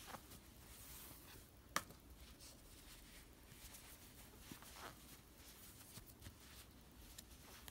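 Near silence with faint soft rustling of chunky yarn being worked on a crochet hook by hand, and one sharp click about two seconds in.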